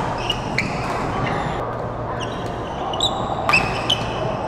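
Badminton rally on a hall court: rubber-soled shoes squeak in short chirps on the court floor, and rackets strike the shuttlecock with sharp clicks, the loudest about three and a half seconds in. Underneath is the echoing background of a large sports hall.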